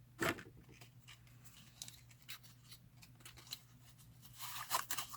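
Light handling sounds of small objects close to the microphone: scattered soft clicks and rustling scrapes, with a sharper knock about a quarter second in and a brief run of scraping near the end.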